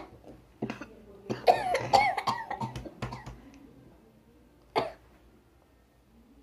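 Girls coughing: a run of coughs over the first three seconds, then a single cough just before the five-second mark.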